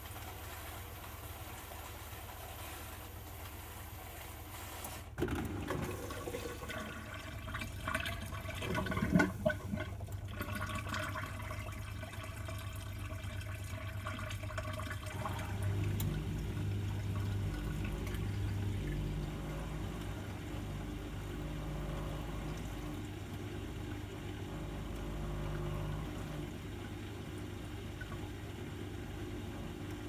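Compact countertop dishwasher running: a low hum, then about five seconds in a sudden rush of water through the machine. From about halfway a steadier low motor hum takes over.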